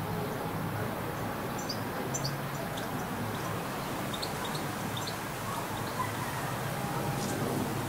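Urban garden ambience: a steady low background rumble, with faint, high, short bird chirps scattered through from a second or two in.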